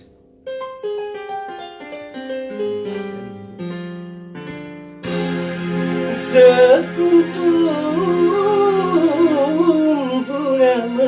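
Instrumental song intro on keyboard. It opens with a run of single piano-like notes stepping downward, then about five seconds in fuller backing chords come in under a wavering lead melody.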